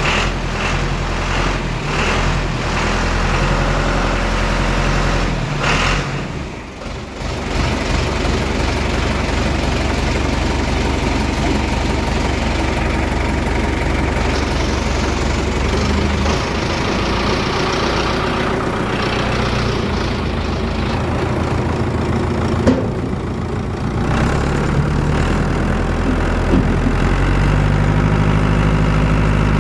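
Farm machinery engines running steadily, in several cut-together clips: the engine sound changes abruptly twice, about six and about twenty-four seconds in.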